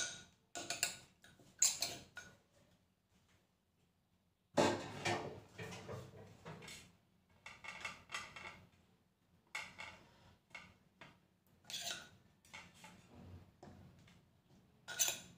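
A metal spoon scraping and clinking against the inside of a clay mortar while it stirs a pickled bamboo-shoot mixture. The sounds come in scattered short scrapes, with a silent gap of about two seconds near the start.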